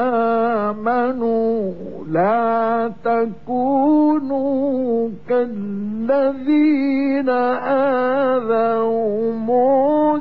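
A man's voice chanting the Quran in the melodic mujawwad style: long, ornamented held notes that glide and waver in pitch, broken by a few short breaths.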